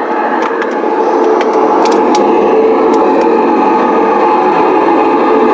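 A model garden-railway locomotive's electric motor and gear drive running steadily, heard from on board with its wheels rolling on the track. The running noise carries a steady whine, with a few sharp clicks between about half a second and three seconds in. It grows fuller and a little louder about a second in, as the train runs into a tunnel.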